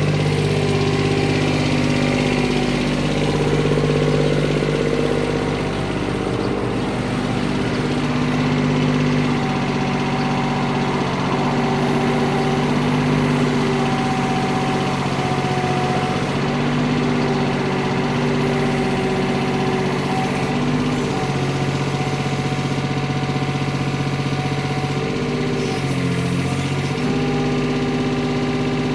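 Komatsu PC10-7 mini excavator's diesel engine running steadily, its pitch stepping up and down several times.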